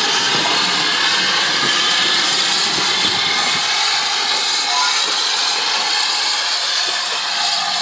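GWR 5101 class 2-6-2 large prairie tank steam locomotive moving slowly off under a steady loud hiss of steam, easing a little near the end.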